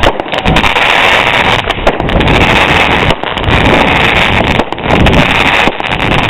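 Ground firework fountain spraying with a loud, steady rushing hiss that overloads the microphone.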